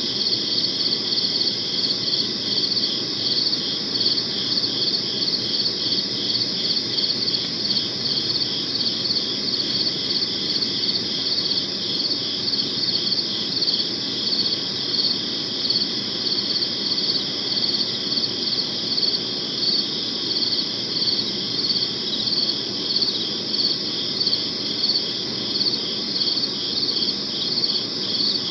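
Crickets chirping steadily in an even rhythm of about three chirps a second, over a faint low background noise.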